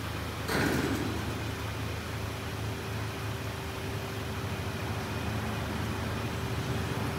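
D&S IQ Express ST car wash machinery running with a steady hum and a constant whine, with a brief hiss of water spray about half a second in.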